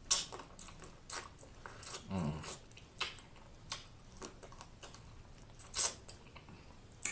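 Close-miked eating sounds: snow crab meat being sucked and chewed from the legs. Irregular wet smacks and clicks, with one longer, fuller slurp about two seconds in.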